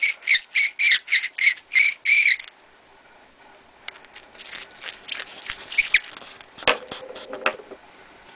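Deburring tool twisted in the mouth of a brass 30-30 rifle case, giving a quick run of about ten squeaky scraping strokes, about four a second, as it cuts away a small lip on the case mouth. After that come only faint handling clicks and taps.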